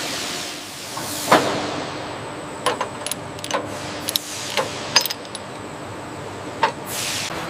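Scattered metallic clicks and clanks, about eight of them at uneven intervals, over a steady background hum, with a short hiss near the end.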